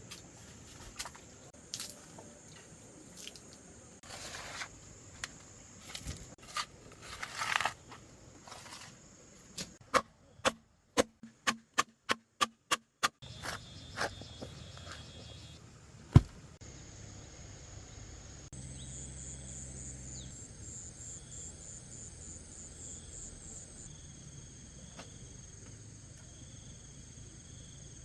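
Insects chirring steadily through the second half, with pulsing high chirps. Before that come scattered clicks and knocks, including a quick run of about nine sharp strikes, roughly three a second, and then one loud single knock.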